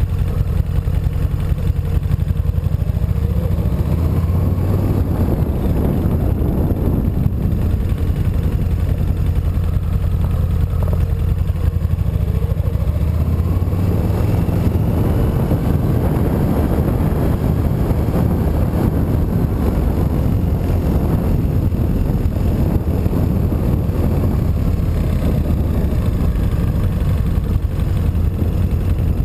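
Motorcycle engine running at low speed, picked up close by a camera on the handlebars, rising in pitch as it accelerates a few seconds in and again around the middle.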